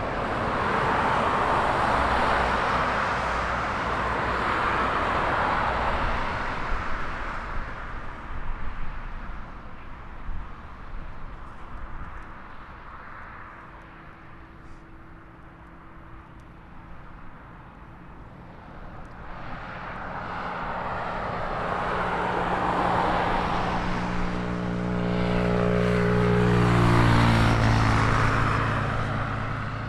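Jet engine noise of a Boeing 777 freighter with GE90 turbofans on final approach and landing. The noise is loud at first, drops in the middle, then swells to its loudest near the end as the aircraft passes closest and touches down, with a falling, phasing whoosh.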